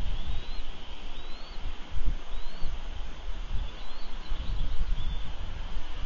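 Wind buffeting an outdoor nest-camera microphone as a fluctuating low rumble, with a bird's thin rising chirps heard faintly about five times.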